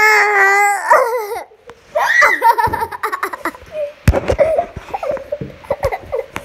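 A child squealing and laughing in high, wavering cries at the start and again about two seconds in. About four seconds in comes a sharp knock, then scattered clicks and rubbing from a phone being handled against clothing.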